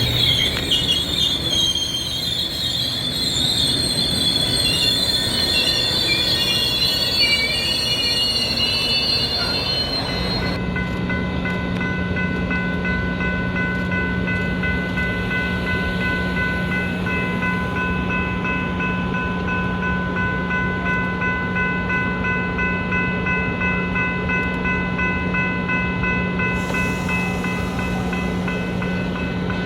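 Metra commuter train wheels squealing on the rails with a wavering high screech for about the first ten seconds. Then the sound changes abruptly to a steady low hum with a few steady whining tones over it.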